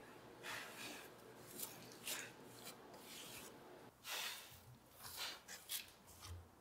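Short, dry rubbing strokes of a hand brushing over a gouge-carved beech board and its loose wood shavings, about eight in all, each a fraction of a second long. A soft low thump comes near the end.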